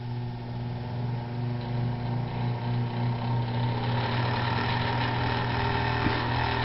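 Moss Hi-Line hugger ceiling fan running with a loud, steady hum and a rough rattle that grows stronger over the first few seconds, a racket likened to a jackhammer. The noise is the sign of a faulty fan motor.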